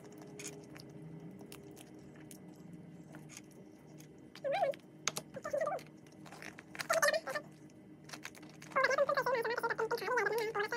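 Scattered sharp clicks and small cracks of a steamed crab's shell being handled and pried apart by hand. Short voice sounds come in between, with a longer stretch near the end.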